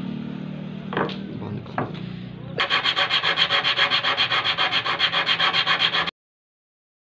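A steady low hum with two short knocks, then rapid rhythmic scraping by hand, about six strokes a second, as a small part is rubbed at the workbench of a starter-motor carbon-brush repair. The scraping cuts off abruptly about six seconds in.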